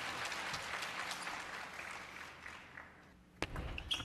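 Arena crowd applauding a won point, the clapping slowly dying away, then a single sharp knock about three and a half seconds in.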